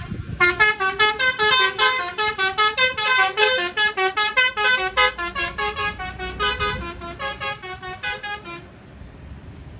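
An Agra Mas sleeper bus's basuri horn, the Indonesian telolet-style multi-tone musical horn, playing a fast melody of short notes, several a second. The notes step up and down in pitch, grow fainter in the second half and stop about eight and a half seconds in.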